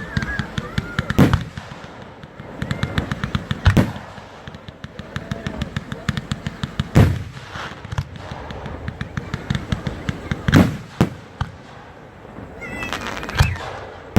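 Fireworks going off: fast runs of crackling pops, with six louder bangs spread through.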